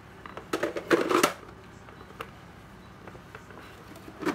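Clatter of plastic power-tool battery chargers being handled: a quick burst of knocks and rattles about a second in, and one more knock near the end.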